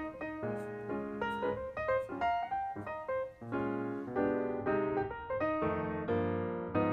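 Background piano music, a run of notes at a steady pace.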